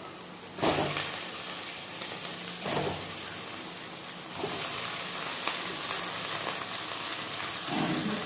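Washed raw chicken pieces going into a hot wok of oil with fried onion, ginger and garlic paste: a sudden loud sizzle about half a second in that keeps on frying, growing hissier about four seconds in.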